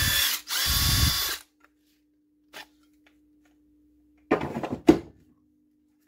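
Makita 18V LXT cordless impact driver spinning freely in two short trigger pulls: one run stops just under half a second in, and a second lasts about a second. About four seconds in come a brief clatter and a sharp click as the tool is handled.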